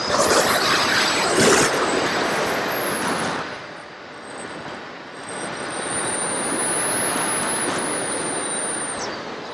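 FPV model aircraft's electric motor and propeller whining at high throttle over rushing air, heard from the onboard camera. The whine falls slightly and fades after about three seconds, comes back about five seconds in, and cuts off suddenly near the end.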